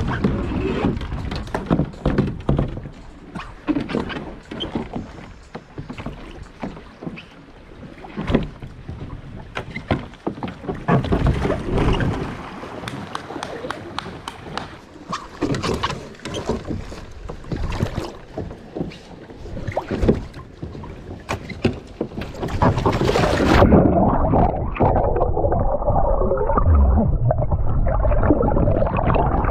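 Water splashing with many sharp knocks and bumps against an inflatable kayak and its gear. About 23 seconds in, the sound turns suddenly dull and muffled as the microphone goes under the river water, and a loud underwater rush of bubbling water follows.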